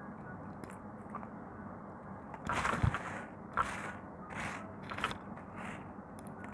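Knife carving into a bar of soap: a run of about five crunching, scraping strokes beginning about two and a half seconds in, the first the loudest.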